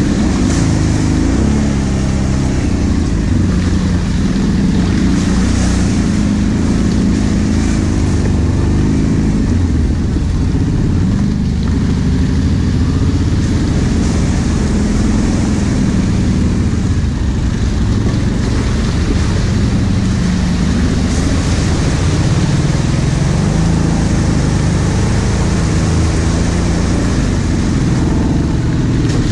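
Quad bike's engine running at low speed, its pitch rising and falling with the throttle, with intermittent splashing and hiss from the tyres going through mud and puddles.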